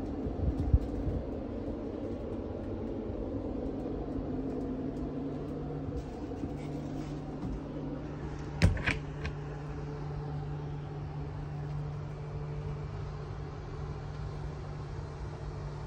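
A steady low hum sets in a few seconds in. Light knocks come just after the start, and a sharper knock comes about nine seconds in.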